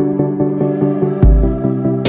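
Background music: an ambient electronic track with a steady pulse of short notes. The chord changes with a deep bass note just past a second in.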